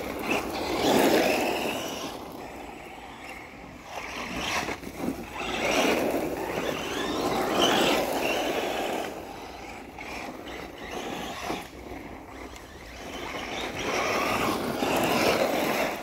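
Electric RC short-course truck driving on a gravel track: motor whine and tyre crunch on gravel, getting louder in three surges as it speeds up, about a second in, around six to eight seconds in, and near the end.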